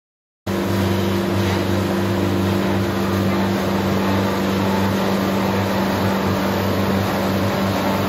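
Self-propelled stump grinder's engine running steadily, with a level, even drone, as the machine is driven into place. It starts abruptly about half a second in.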